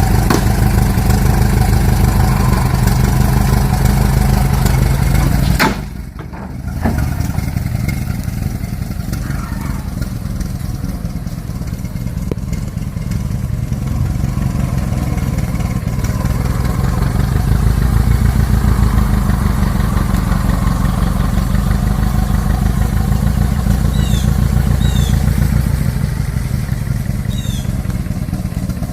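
Vintage car engine running with a steady, low, pulsing rumble. About six seconds in it dips sharply and briefly, then picks back up.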